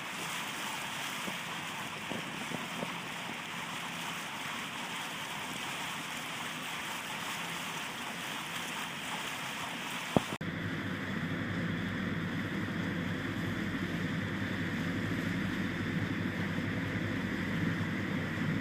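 Waterfall rushing steadily as an even wash of falling-water noise. A sharp click about ten seconds in is followed by a deeper rush.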